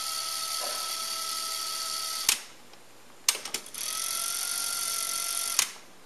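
Bang & Olufsen Beocord 5500 cassette deck fast-winding a tape: a steady whir with a faint thin high tone that stops with a sharp mechanical clunk about two seconds in. After a second of quiet, a few button clicks set it winding again, and it stops with another clunk near the end.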